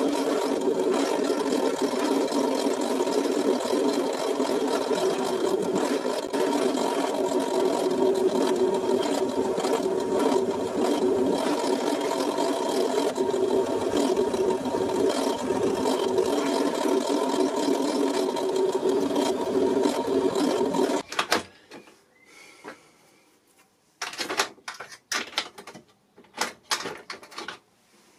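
Old bench pillar drill running steadily while its bit is fed into a metal block clamped in a drill vice; the motor stops about three-quarters of the way through. A few light metallic clicks and knocks follow near the end.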